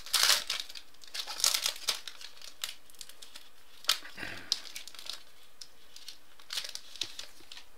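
A foil baseball card pack wrapper being torn open and crinkled in the hands, with irregular crackles and tearing sounds throughout.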